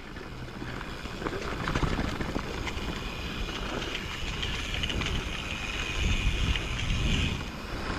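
Mountain bike being ridden down a dirt trail: wind rushing over the microphone, with tyre noise on the dirt and small rattles and clicks from the bike.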